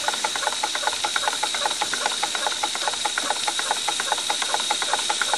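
Wilesco D222 toy steam engine's twin cylinders running on live steam at slow tick-over: a rapid, even ticking of exhaust beats over a steady steam hiss.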